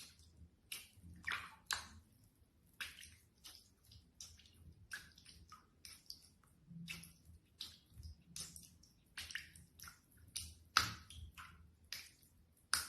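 Faint, irregular drips and small wet clicks of water, one to three a second.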